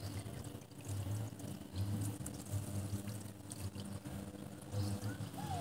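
Water trickling steadily, with soft low bumps every second or so.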